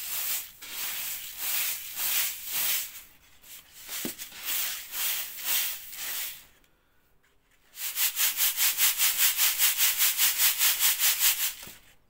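Boiled bulgur wheat rustling and hissing in a wooden-rimmed wire-mesh sieve (kalbur) as it is worked by hand. After a short pause it is shaken fast and evenly, about six shakes a second, for nearly four seconds, then stops. The grain is being sifted to shake out the small seeds mixed into it.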